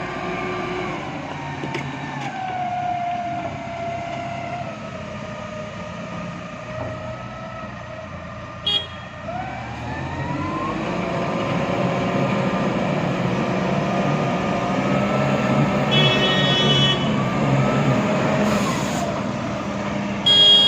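Backhoe loader's diesel engine working, its pitch rising and falling as it revs under load, with a few short high beeps.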